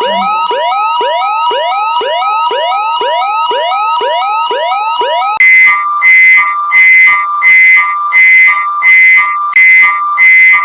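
Two electronic emergency alert attention signals in a row. The first is a quick rising whoop, repeated about twice a second over two alternating steady tones. About five seconds in, it switches abruptly to a louder pulsing two-tone beep at about one and a half pulses a second.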